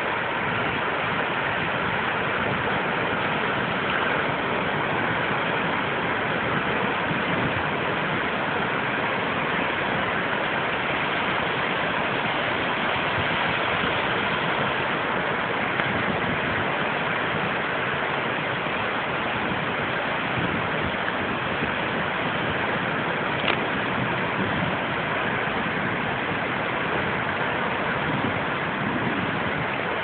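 Steady rush of ocean surf as waves break and foam over a rocky reef, with one small click about two-thirds of the way through.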